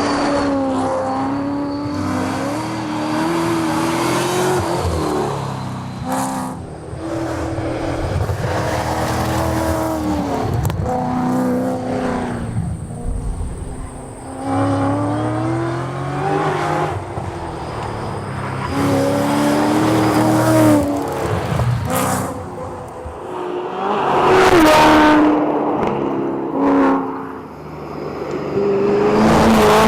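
Ford Mustang tarmac rally cars driven hard, the engine note climbing through each gear and dropping at every shift, over a series of cut-together runs and passes.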